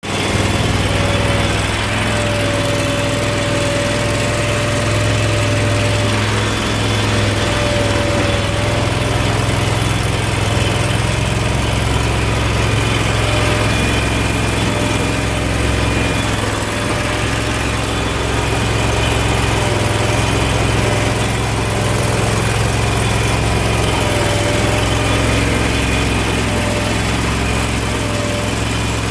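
Crawfish boat's engine running steadily with the boat under way: an even low hum with a higher whine that fades in and out.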